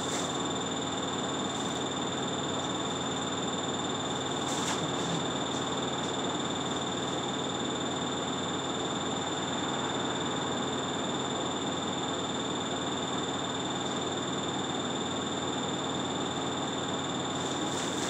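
Steady cabin noise inside a running city bus: engine and road noise, with a constant high-pitched whine over it.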